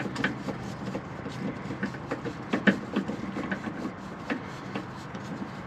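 Hand ratchet with a socket extension clicking at irregular intervals as a suspension bolt is turned out by hand, with a few sharper metallic clicks about two and a half seconds in.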